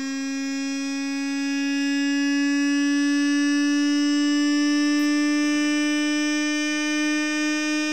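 Home-built magnetically levitated Bedini SSG motor spinning with a steady high hum, rich in overtones, its pitch creeping slightly upward.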